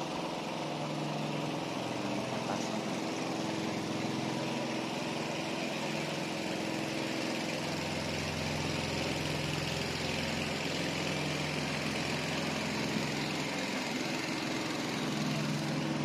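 A small engine running steadily at one pitch, with a deeper low hum joining about halfway through.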